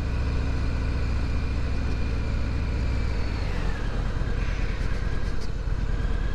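Harley-Davidson Sport Glide's Milwaukee-Eight 107 V-twin running steadily at low road speed through its stock, regulation-restricted exhaust. The engine note falls a little about halfway through.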